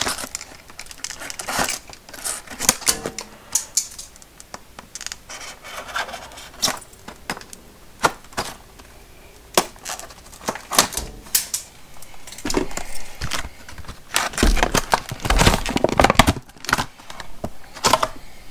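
Clear plastic blister packaging being cut open and pulled apart by hand: irregular clicks, crackles and crinkles, busier near the end.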